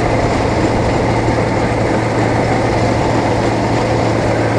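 Bizon Z040 combine harvester running steadily while cutting grain, heard from its open operator's platform with no cab: a constant engine drone with a low hum, mixed with the even noise of the working header and threshing gear.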